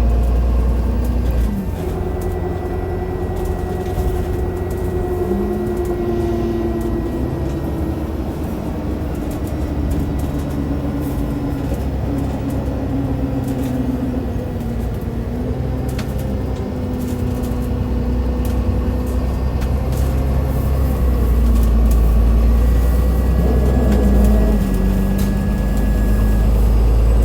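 Alexander Dennis Enviro500 MMC bus under way, its Cummins ISL8.9 diesel and ZF six-speed automatic running with a steady whine from the axle that slowly falls in pitch, with a few steps. The engine rumble grows louder about two-thirds of the way through.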